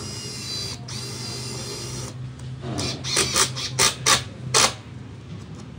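Makita TD110D 12V cordless impact driver driving a fastener: a steady motor whine for about two seconds, briefly interrupted, then short bursts of loud sharp clacking as the hammer mechanism impacts.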